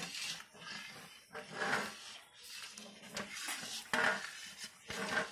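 Metal spoon stirring a thick, lumpy milk powder mixture in a pan, scraping through it and against the pan in repeated uneven strokes, with a few sharper clinks in the second half.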